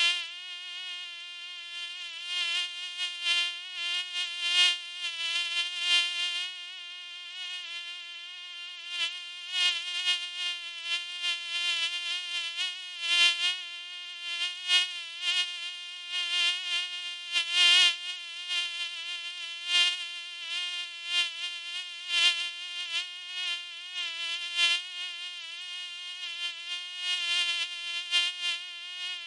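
Mosquito whining in flight: one steady high hum with a slightly wavering pitch, swelling louder and fading again over and over as it flies close by.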